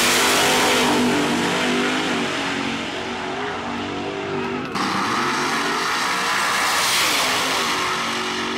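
Two drag-racing cars, a twin-turbo Mustang and a '55 Chevy, running side by side at wide-open throttle down the strip: a loud, steady engine howl. It breaks off abruptly about halfway through and comes straight back at full power.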